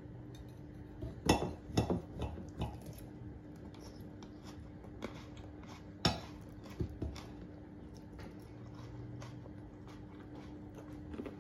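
Metal knives and forks clinking and scraping on ceramic plates while cutting food, with a few sharp clinks about a second in and again around six seconds in, over a steady low hum.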